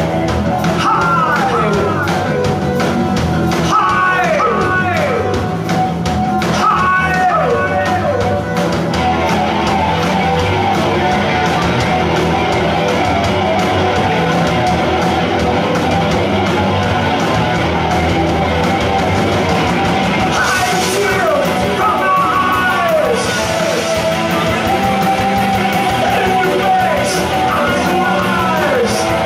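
Post-punk goth rock band playing live: electric guitars and drums with a singer's voice. Sliding, bending high notes come and go over the band, thickest in the first few seconds and again in the last third.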